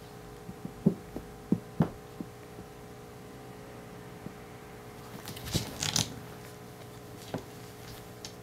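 Two cats scuffling on a wooden floor, with no cries: a few soft thumps of paws and bodies in the first two seconds, then a brief scratchy rustle of contact about six seconds in and one more thump.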